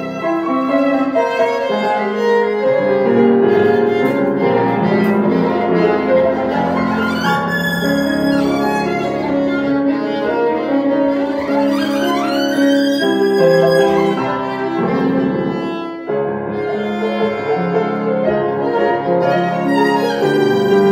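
Violin and grand piano playing a slow piece together, the violin carrying the melody over piano chords, with two sliding notes from the violin, one about a third of the way in and another a little past halfway.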